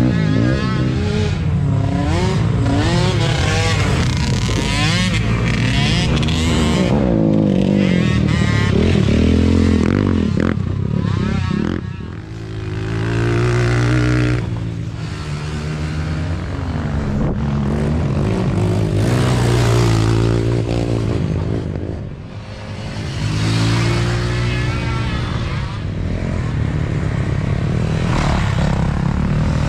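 Sport quad ATV engines revving as racers pass one after another, the pitch climbing and dropping with throttle and gear changes, with brief lulls about twelve and twenty-two seconds in. A dirt bike passes near the end.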